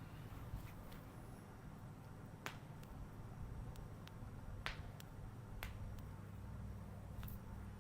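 Sharp snaps and cracks from a hands-on massage, about five of them spaced irregularly a second or two apart, the loudest a little past the middle, over a quiet background.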